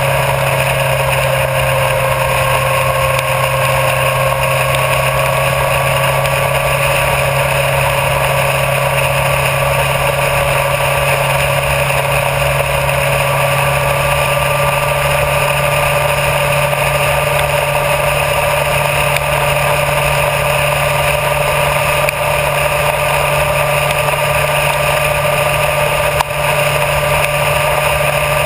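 Honda CBR1000RR Fireblade's inline-four engine running at a steady road cruise, its note creeping slowly higher in pitch, under a constant rush of wind and road noise.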